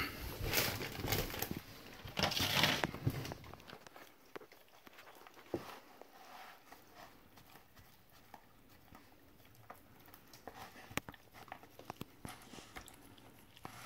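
Husky eating a rotisserie chicken from a plastic tray: tearing and chewing at the meat, loudest in the first three seconds, then quieter with occasional sharp clicks.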